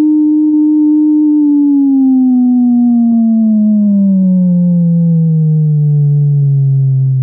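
Electronic test tone held at constant physical intensity, steady at about 300 cycles per second, then gliding smoothly lower in pitch from about a second and a half in. As the pitch falls it becomes much less evident and weaker to the ear, showing the ear's poor sensitivity to low-pitched sounds such as the atrial heart sound.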